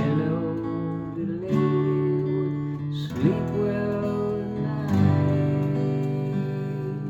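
Yamaha acoustic guitar strummed, a new chord about every second and a half, each left to ring.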